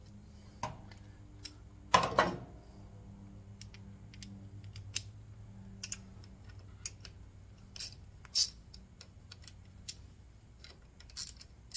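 Ratchet head of a torque wrench clicking in irregular strokes as it runs down the bolts of a Harley clutch pressure plate, with a louder metallic clatter about two seconds in.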